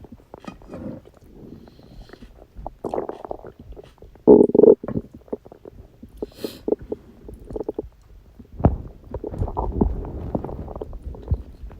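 Human stomach and intestines gurgling and growling as food is digested, in irregular bubbling gurgles. The loudest gurgle comes about four seconds in, and the rumbling turns denser and more continuous about two-thirds of the way through.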